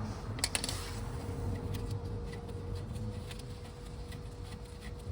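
Light metallic clicks and taps of spanners on the rear brake caliper bolts as they are wound out, with two sharper clicks about half a second in, over a faint steady hum.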